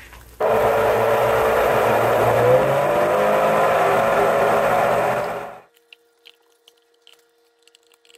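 Countertop blender motor running steadily on a medium-high setting of about 7, blending a thick egg-white and cream mixture that does not flow freely over the blades. Its pitch rises a little midway, and it stops abruptly after about five seconds.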